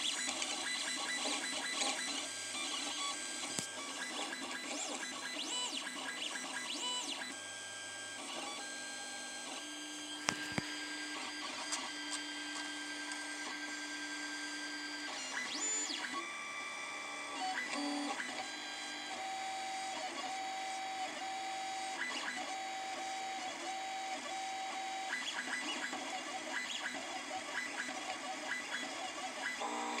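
Stepper motors of a 3D printer used as a pen plotter, running in a series of short moves as it draws pads and traces in marker on a copper-clad board; each move is a steady tone whose pitch changes from move to move, with a couple of sharp ticks about ten seconds in.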